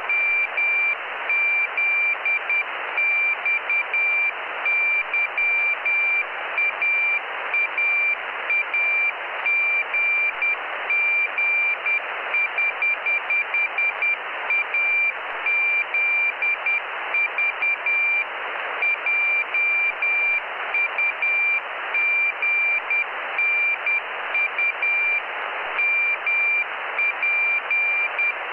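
Morse code telemetry beacon from the Jugnu cubesat heard through a radio receiver: a high, steady-pitched tone keyed on and off in rapid dots and dashes over constant receiver hiss.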